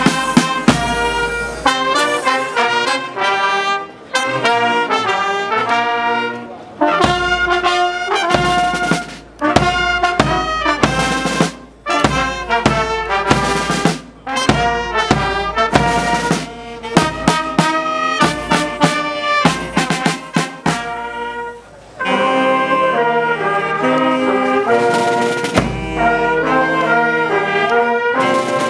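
Military brass band playing: trumpets and trombones over bass drum and snare drums, in short phrases with drum strokes between; near the end the brass moves to longer held notes.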